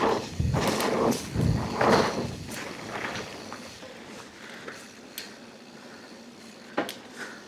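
Mountain bike riding over a rough dirt trail: tyre noise with the bike rattling and knocking over bumps, easing after about three seconds to quieter rolling broken by a few sharp clicks.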